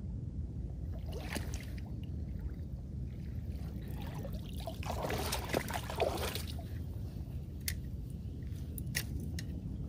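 River water splashing and sloshing as a fish is scooped into a landing net, densest for a couple of seconds in the middle, over a steady low rumble. A few sharp clicks follow near the end.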